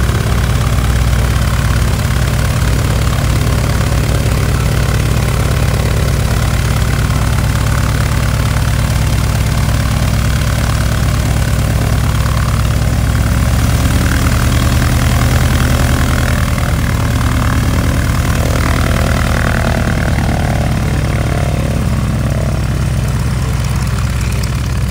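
Piston engine of a propeller airplane idling steadily, a little louder about halfway through.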